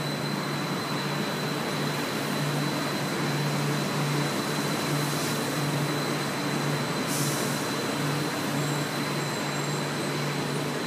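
Bombardier Innovia APM 256 rubber-tyred automated metro train running past on an elevated concrete guideway as it pulls into the station. Steady rolling noise with a low, pulsing hum and a thin, constant high whine.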